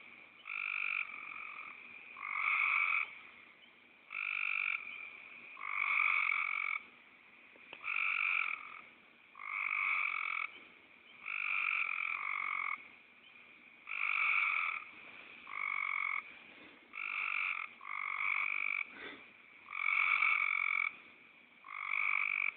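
A frog calling over and over with a snoring call, one call every second or two, each lasting about half a second to a second.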